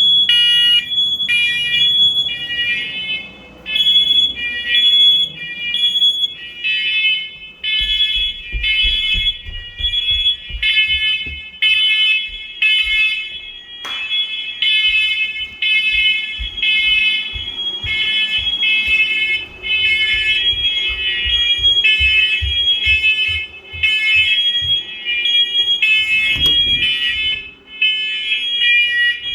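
Several interconnected First Alert smoke and carbon monoxide alarms sounding together in a test: loud, high-pitched beeping that starts suddenly. The beeps from the different units overlap out of step.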